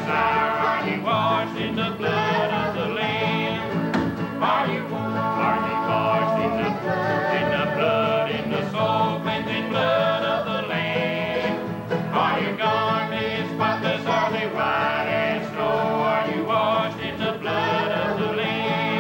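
Live country-bluegrass band playing and singing a gospel medley: acoustic guitar and upright bass under voices singing together.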